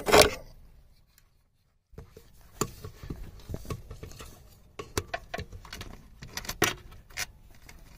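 Handling noise as a hand and phone move around engine-bay parts: a loud knock at the start, about a second of silence, then scattered light clicks, taps and rustles.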